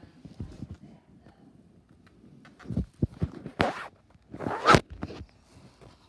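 Handling and rummaging noise close to the microphone: a few soft knocks a little under halfway through, then two loud rasping rustles, the second the loudest.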